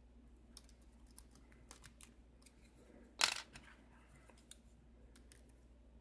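Faint scattered clicks of a lock pick and tension wrench working the pins of a five-pin Kwikset key-in-knob lock, with one louder, brief scrape about three seconds in.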